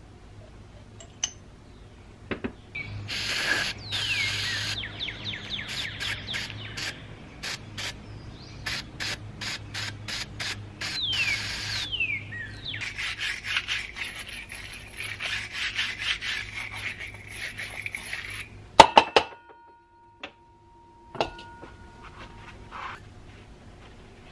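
Scraping and rubbing strokes of grimy hydraulic valve parts being scrubbed clean: a long run of quick rasping strokes with short squeaks. It ends near the end in a few sharp knocks and a brief ringing tone.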